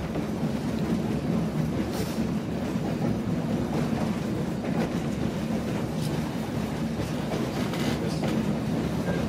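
A passenger train running along the track, heard from inside the car: a steady rumble with a few faint clicks from the wheels.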